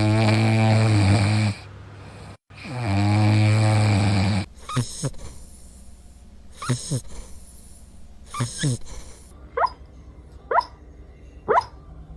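A dog snoring: two long, loud snores, then a run of short squeaky whistles on the breath, about one a second.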